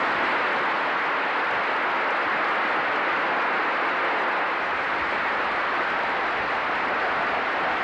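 Large crowd applauding steadily, an even wash of clapping heard through an old newsreel soundtrack.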